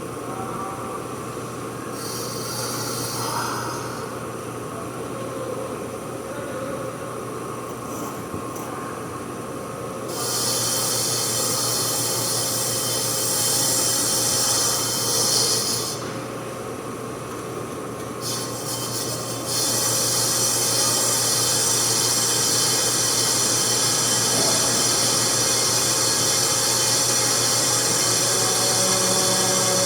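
Brake rotor being skimmed on a brake lathe: a steady motor hum with a high-pitched metal-cutting scrape. The scrape comes in about ten seconds in, stops for a few seconds, then returns and holds steady.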